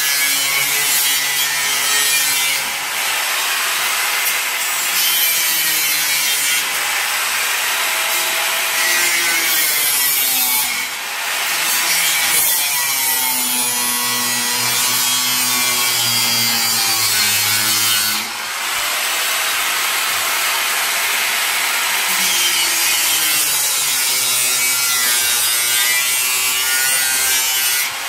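Angle grinder cutting through a school bus's steel side panel: a continuous loud grinding hiss, the motor's whine sagging and rising as the disc bites, with brief let-ups about 3, 11 and 18 seconds in.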